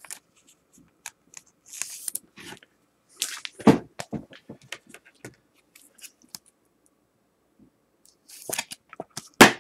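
Trading cards and a clear plastic card holder being handled on a table: scattered light clicks, taps and short rustles, with a sharper knock a little before four seconds in and another near the end.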